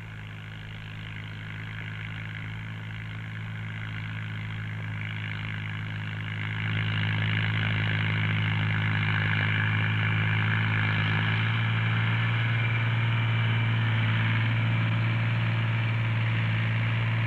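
Ford tractor's diesel engine running steadily under load while pulling a reversible plough. It grows gradually louder, then jumps in loudness about six and a half seconds in.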